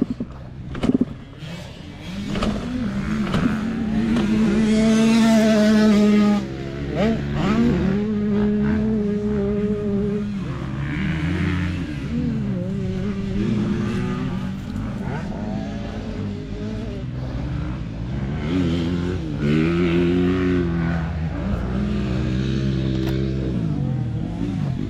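Motocross dirt bike engine running and revving, its pitch climbing and falling. There are a couple of sharp knocks about a second in, and the engine holds a high steady pitch until about six seconds, then drops suddenly.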